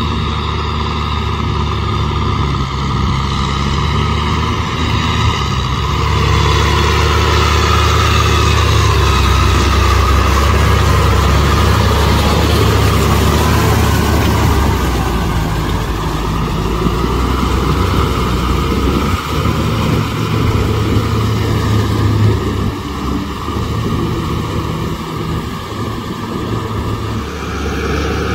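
Kubota M6040SU tractor's diesel engine running steadily under load as it works through mud, louder through the middle and easing off near the end.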